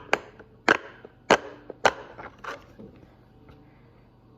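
Silicone Pop-It fidget bubbles being pressed in one at a time, each giving a sharp pop, about five pops in the first two and a half seconds, then fainter ones and a lull near the end.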